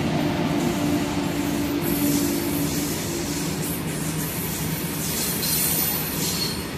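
A freight train passing close by: an Indian Railways electric locomotive hums steadily for the first three seconds or so, then its open box wagons roll past with the steady rumble and hiss of steel wheels on the rails.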